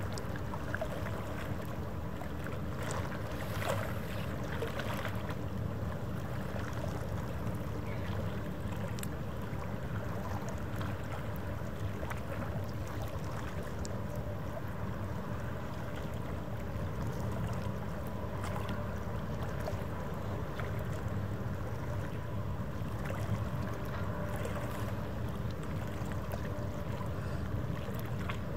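Steady low rumble and hum of the cruise ship Crystal Symphony's machinery under way, with a few faint clicks.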